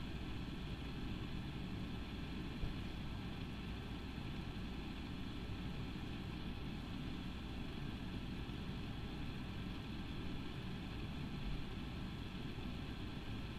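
Steady low hum with a faint hiss, unchanging throughout, with no distinct events.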